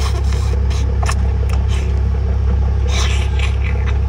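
Steady low engine rumble from a running motor, with wet biting, chewing and slurping of cooked octopus over it in short bursts, a cluster of them about three seconds in.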